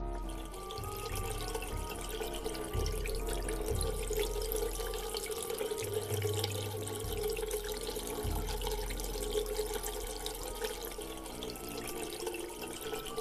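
Running water splashing steadily.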